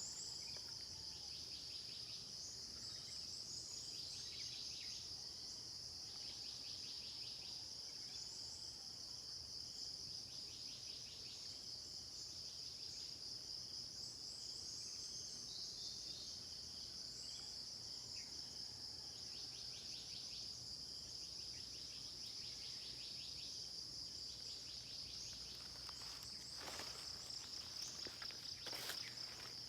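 Steady high-pitched chorus of crickets and other insects, with pulsing trills rising over it every few seconds. A few brief knocks, like footsteps, come near the end.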